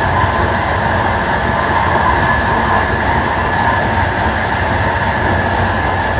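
Steady running noise of an express passenger train, its last coach's wheels rolling on the rails, heard from the rear end of the train.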